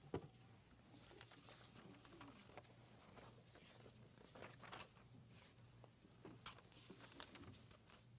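Faint rustling of loose paper sheets being handled and Bible pages being turned, with one light knock just after the start.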